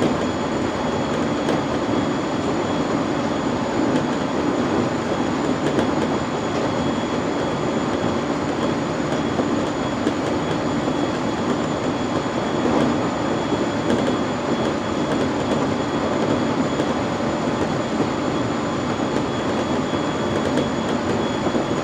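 JR East 701 series electric train running on the line between stations, heard inside its driving motor car: a steady rumble of wheels on rail with a faint, steady high whine over it.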